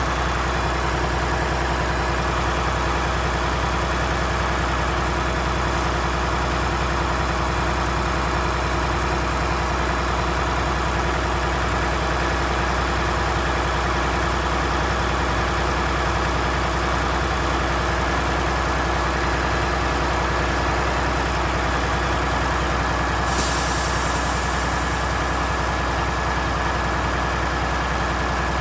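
Truck engine idling steadily, heard close up from underneath.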